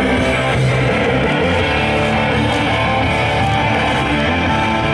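Music led by guitar, playing steadily at an even level, with no speech over it.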